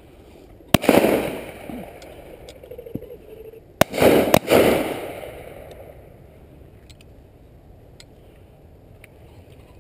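Shotgun shots fired at driven pheasants overhead: one loud shot about a second in, then a quick string of two or three shots around four seconds in. Each crack is followed by a rolling echo that dies away over about a second. Fainter single shots from other guns sound further off.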